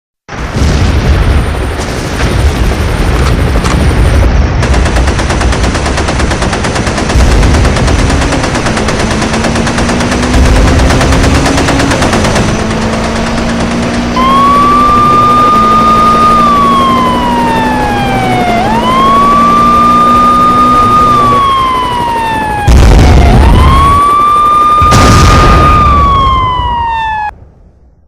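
Loud, rough noise with a heavy low rumble, joined about halfway through by an emergency siren wailing, rising, holding and falling about three times before everything cuts off near the end.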